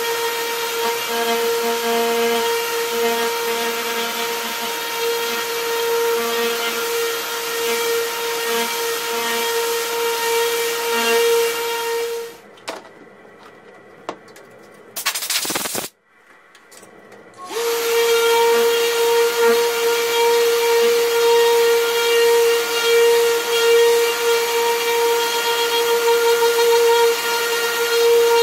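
Random orbital sander with a dust-extraction hose sanding a zelkova slab: a steady whine over a hiss. It stops about twelve seconds in, gives one short burst of noise around fifteen seconds, and starts again about five seconds after stopping.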